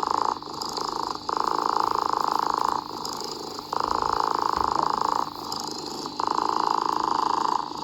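A cat purring in a steady rhythmic cycle: a louder stretch of about a second and a half alternates with a softer, shorter one, about three times over.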